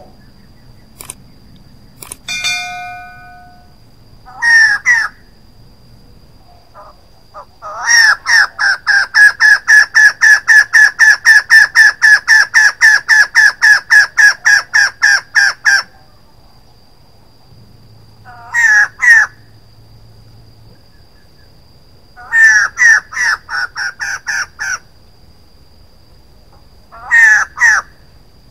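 Female white-crested laughingthrush calling: short bursts of repeated notes, then a long rapid run of about four to five notes a second lasting some eight seconds, followed by several shorter bursts. A faint steady high tone sounds underneath throughout.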